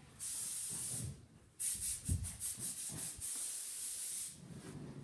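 Wooden corner-cabinet door pushed shut by hand, with a dull knock about two seconds in and a few softer ones after. A sharp, high rubbing hiss comes in two stretches, the second one pulsing quickly.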